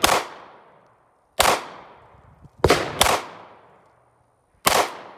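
Five pistol shots at an uneven pace, two of them close together midway, each trailing off in a short echo.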